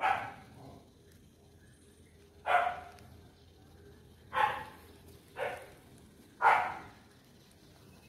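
A dog barking: five short single barks, one to two and a half seconds apart.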